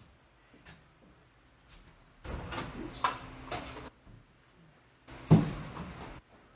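Bootz Nextile tub-surround panel scraping and knocking against the wall and lower panel as it is slid into place, in two rough bursts, the second starting with a sharp knock, the loudest sound.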